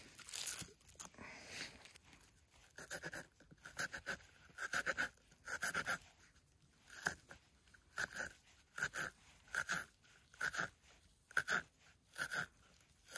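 Knife cutting a large red onion on a small wooden cutting board: a series of short, crisp crunching cuts, each with a light tap of the blade on the board, coming about one to two a second as the onion is sliced and then diced.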